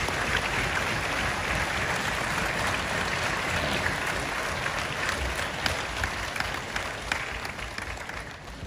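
Audience applauding, a steady clapping that fades out near the end.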